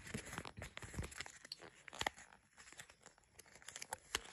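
Light crinkling with scattered small clicks and ticks from handling an insulin pen needle's peeled seal and its plastic cap.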